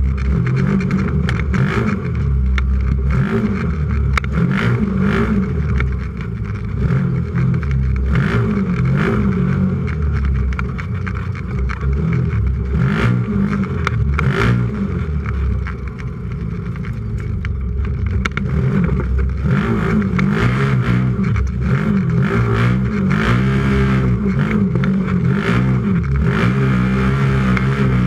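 UTV engine revving up and down repeatedly as the vehicle races, heard from inside the roll cage, with frequent short knocks and rattles of the chassis.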